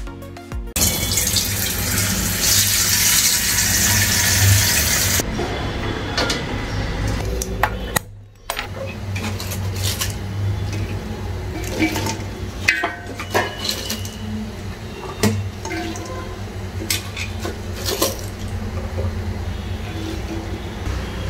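Water runs for a few seconds as a steady rushing hiss. Then chopped vegetables are dropped by hand into a large aluminium handi, with scattered knocks and clinks of the pieces against the metal pot.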